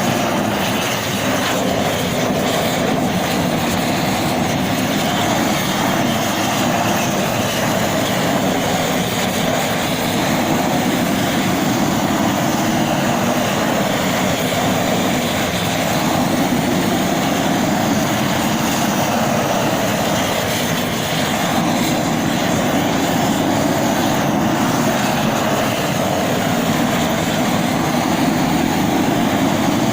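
Propane roofing torch burning loudly and steadily, heating torch-on bitumen roofing membrane to melt it onto the roof.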